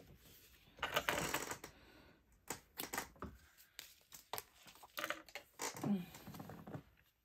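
Irregular clicks and rustling from handling a fabric purse and small sewing tools on a worktable, with the sewing machine at rest.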